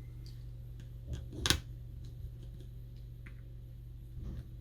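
A few light, sharp clicks and taps of a small screwdriver and tiny screws on the iPhone's metal connector plate, one louder click about a second and a half in, over a steady low hum.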